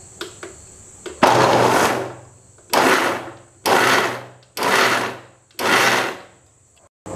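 Electric mixer grinder (mixie) run in five short pulses, each under a second, crushing whole turkey berries in its jar. Pulsing rather than running it continuously keeps the berries coarsely crushed instead of ground to a fine paste.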